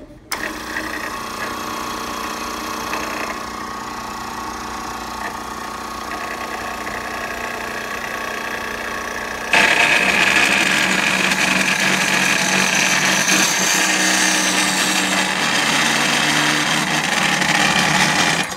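Brown cold saw switched on at its push button: the motor and gear drive start suddenly and run steadily with a hum of several tones. About nine and a half seconds in, the circular blade bites into the metal in the vise and a louder, harsher cutting noise joins, the cut running dry with the coolant off. The sound drops away abruptly at the very end.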